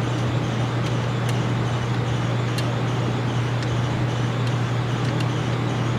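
Steady low machine hum, with a few faint sharp ticks scattered through it.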